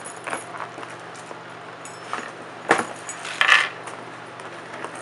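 Cardboard box being handled and opened by hand: scattered light clicks and scrapes, a sharp click a little over halfway through and a short scraping rustle just after it, over a faint steady hum.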